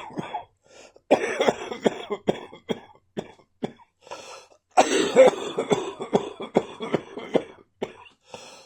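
A person coughing in fits from an RSV (respiratory syncytial virus) infection. A quick run of sharp coughs comes about a second in, then a few single coughs, then a longer, harder fit from about five seconds in to about seven and a half.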